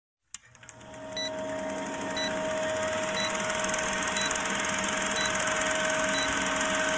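Old film projector sound effect: a fast mechanical rattle over a steady hum, fading in over the first second or two. A short high blip sounds about once a second as the countdown leader counts down.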